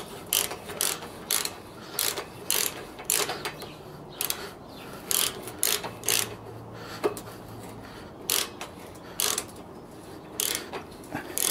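Ratchet wrench clicking in short, irregular strokes, about two clicks a second, as a motorcycle fork cap is turned down on its fine threads against the pressure of the fork spring.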